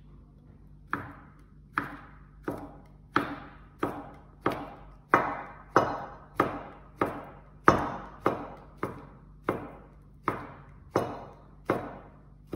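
Chef's knife slicing hot dogs into rounds on a plastic cutting board. Each cut ends in a sharp knock of the blade on the board, in an even rhythm of about three strokes every two seconds that starts about a second in, over a steady low hum.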